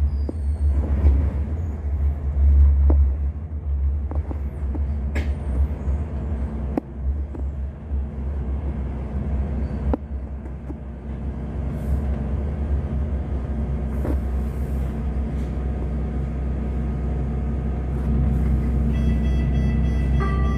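Interior running noise of a Sheffield Supertram: a steady low rumble from the running gear and motors, with scattered clicks and knocks. Near the end a set of steady high tones comes in.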